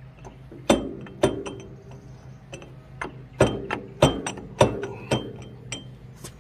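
Sharp metallic clinks and clanks, about six strong ones with lighter ticks between, from a Ford 8N starter being worked by hand to free its stuck, rusty Bendix drive.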